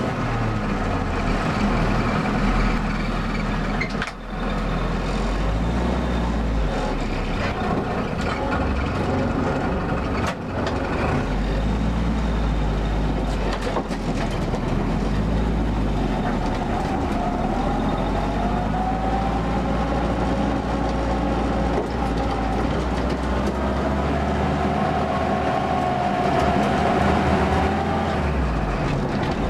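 The 'Follow Me' Jeep's engine running just after starting, first standing and then pulling away and driving. About halfway in, a whining tone joins the engine note as it drives.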